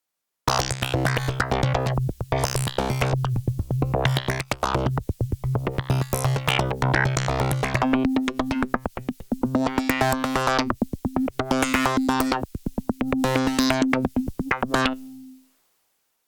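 Arturia MiniFreak synthesizer playing a fast, rhythmically pulsing sequenced pattern over a held bass note. The bass moves up about an octave halfway through, and the pattern stops sharply near the end with a brief tail.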